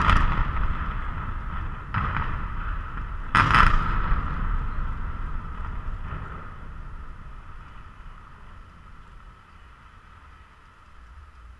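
Power station cooling towers being demolished: a sudden loud blast from the explosive charges, another about two seconds in and the loudest about three and a half seconds in. These are followed by a deep rumble of the towers coming down that slowly fades away.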